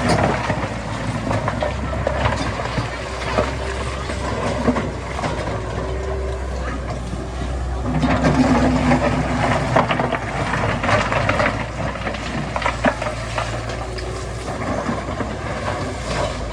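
Heavy diesel machinery engine running steadily, growing louder for a couple of seconds about eight seconds in, with scattered metallic knocks.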